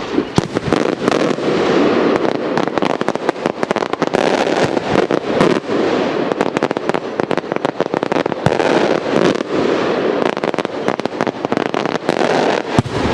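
Maltese beraq aerial firework shells bursting overhead, a dense, continuous crackle of many rapid sharp cracks and pops with no pause.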